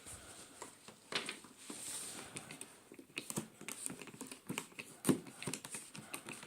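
Product packaging being opened and handled by hand: irregular rustling and scraping with scattered sharp clicks and taps.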